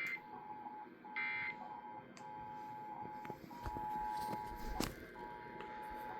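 Emergency Alert System end-of-message data bursts: two short, harsh digital squawks about a second apart at the start. A steady mid-pitched alert tone follows, breaking off briefly every second or so, with a sharp click near the five-second mark.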